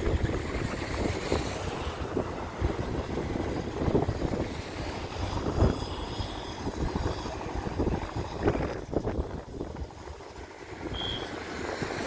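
Wind buffeting the microphone in irregular gusts: a low rumble with sudden peaks, easing off briefly near the end.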